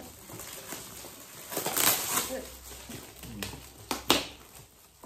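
Shiny metallic gift-wrapping paper being torn and crinkled as presents are unwrapped, with sharp rustling surges, loudest about two seconds in and again about four seconds in.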